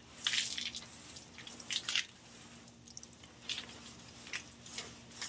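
Soapy scrub brush with stiff bristles being worked against a jon boat's hull, with soapy water splashing and dripping off it in short, irregular bursts.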